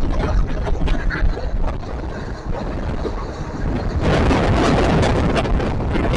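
Passenger train running, heard from on board with wind buffeting the microphone: a steady low rumble with scattered sharp knocks, and a louder rushing noise from about four seconds in.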